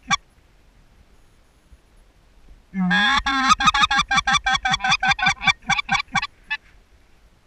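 Short-reed white-fronted goose (speck) call blown in a quick run of clucking notes, about six a second, starting about three seconds in after a longer opening note and stopping after about three and a half seconds with two last spaced notes.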